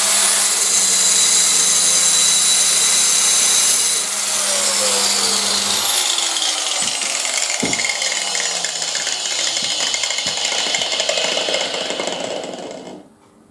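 Angle grinder disc grinding down steel nuts that spin in a drill press chuck, turning them into a spacer collar: a loud, dense grinding for about four seconds. Then the grinding stops and a falling whine follows as the machine spins down under continuing motor noise, which stops shortly before the end.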